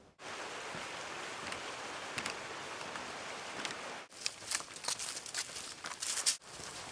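Hiking footsteps crunching on dry leaves and rock along a trail, with a steady rushing noise through the first half; sharp crackles become prominent over the second half.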